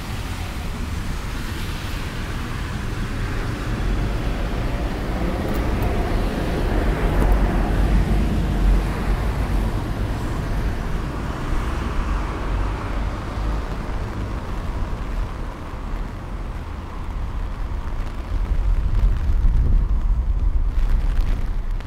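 Gusty wind buffeting the microphone with a heavy low rumble that swells and eases, strongest near the end. A small van passes on the wet road around the middle, its tyres hissing on the wet asphalt.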